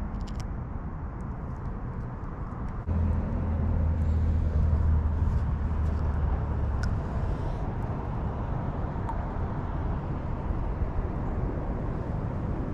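Steady low outdoor rumble of distant road traffic, louder from about three seconds in, with a few faint clicks.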